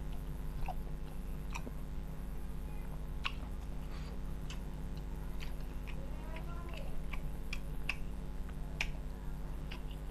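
Close-miked chewing and lip-smacking of a man eating a mouthful of rice and banana-blossom curry, with scattered short wet mouth clicks. A steady low hum runs underneath.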